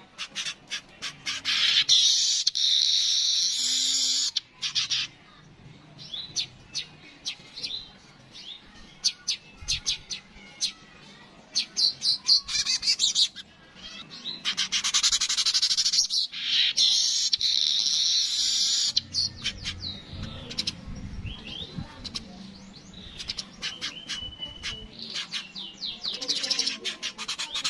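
Yellow-headed manyar (weaver) singing: bursts of rapid dry chattering clicks broken by several long buzzy wheezes, the loudest a few seconds in and again past the middle.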